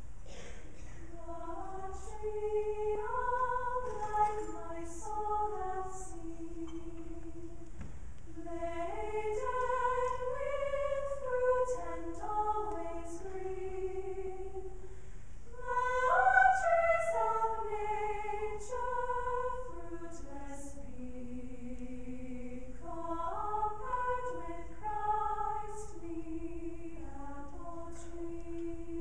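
Mixed choir of men and women singing in sustained phrases, swelling loudest about sixteen seconds in.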